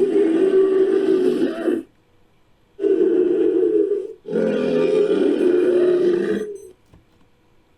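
Invented dinosaur calls: Corythosaurus and Iguanodon sound effects blended into the bellowing of a fictional hybrid creature. There are three long, steady-pitched bellows, the second and third back to back, and each call lasts one to two seconds.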